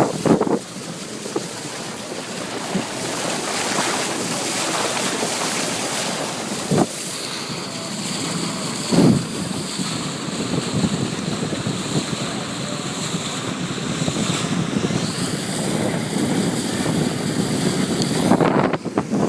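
Motorboat under way: wind buffeting the microphone over the rush of water along the hull, with sharp knocks about 7 and 9 seconds in.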